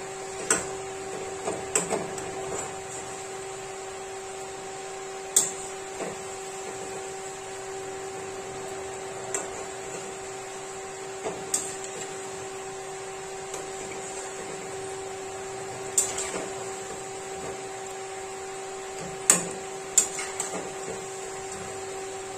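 Gulgule deep-frying in oil in a metal kadhai, with a slotted metal spatula clinking sharply against the pan every few seconds as the dumplings are turned. A steady hum and the even hiss of the frying run underneath.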